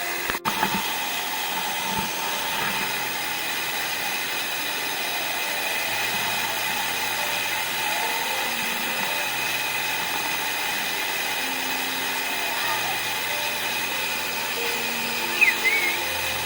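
Steady, even rush of a waterfall plunging into its pool.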